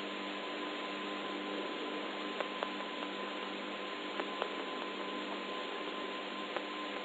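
Background hiss and steady hum of an old 1963 recording, with a thin steady high tone and a few faint clicks: two close pairs and then a single one.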